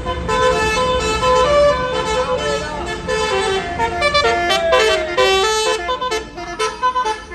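Bus basuri horn, a multi-tone musical air horn, playing a tune note after note over the low rumble of the bus engine, with a denser run of higher notes about four seconds in.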